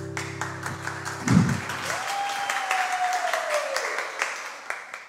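A song ends on a held chord, then a thud about a second in, followed by hands clapping in applause with a long, slowly falling tone over it.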